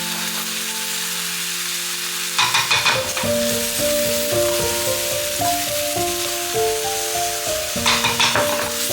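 Food frying and sizzling steadily in a pan, with a couple of short bursts of scraping or stirring, under background music of held melodic notes.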